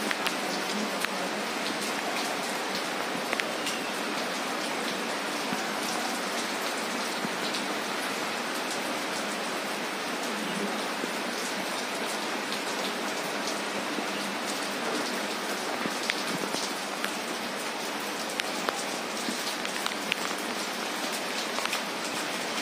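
Steady rain falling on a flooded paved yard and its puddles: an even hiss with scattered sharp ticks of single drops.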